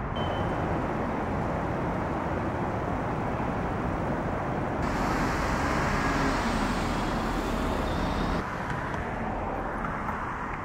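City street ambience: a steady hiss of road traffic, changing abruptly twice, about five and about eight seconds in.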